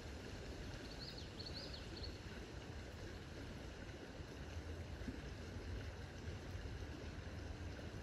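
Steady rush of a shallow woodland river flowing, with a low rumble underneath.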